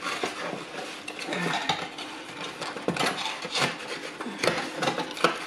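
Cardboard pizza box and paper napkin being handled: irregular rustling, scraping and light knocks as the box and a plastic dip cup are moved about.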